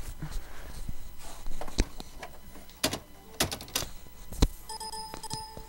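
Sharp plastic clicks and knocks from hands working at an all-in-one inkjet printer, then near the end a pitched electronic beep about a second long from the printer, an error alert for a missing ink cartridge.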